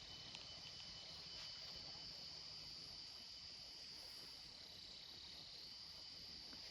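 Faint, steady chorus of field insects such as crickets, a continuous high-pitched trill with a faint pulsing shimmer above it.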